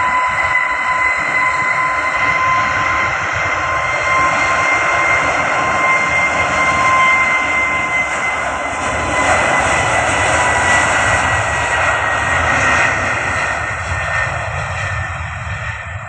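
Airbus A320-family airliner's jet engines at high power as it rolls along the runway: loud, steady jet noise with a high whine over it, fading near the end as the plane moves away.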